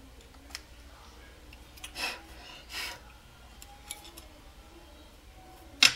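Small hand drill turning its bit through a cured polymer clay pendant, making faint ticks and scrapes. There are two short swishes about two and three seconds in, and a sharp click near the end, the loudest sound, followed by a few smaller clicks.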